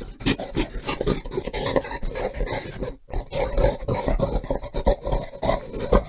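Gorilla calling in rough, noisy bursts that come rapidly and irregularly, with a short break about three seconds in.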